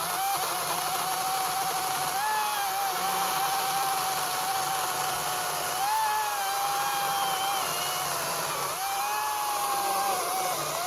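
Ego 56-volt battery chainsaw cutting into dry oak end grain. The electric motor's steady whine dips in pitch a few times as the chain loads up in the cut, then recovers.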